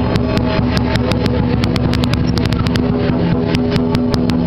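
Loud lion dance percussion: a big drum pounding with hand cymbals crashing several times a second over a steady ringing tone.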